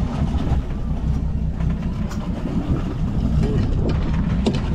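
A fishing boat's motor running steadily at low revs, a constant low rumble mixed with wind and choppy-sea noise, with a few faint knocks.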